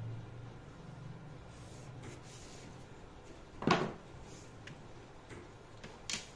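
A single sharp knock a little past halfway, with a lighter click near the end and faint rustling before, as of something handled and set down on a hard surface.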